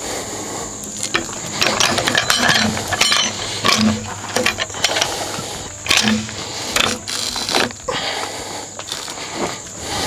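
Peavey hooks biting into and levering a large red oak log on a steel portable-sawmill bed as it is rolled: an irregular run of clicks, knocks and scrapes.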